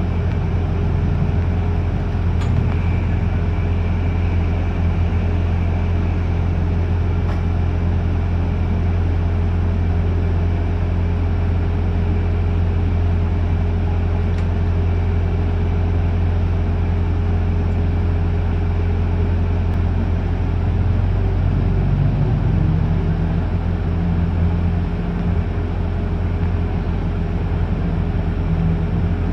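On board a New Routemaster diesel-electric hybrid bus: a steady low engine hum with road noise, heard from the upper-deck rear. The low hum shifts in pitch about two-thirds of the way through.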